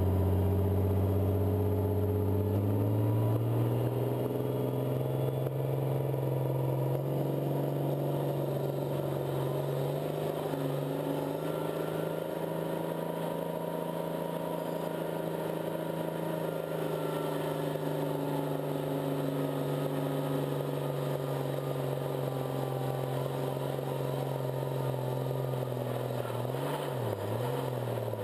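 Hot farm class pulling tractor's engine under full load: the revs climb over the first few seconds, hold high and steady through the pull, then waver and drop near the end as the tractor comes off the throttle.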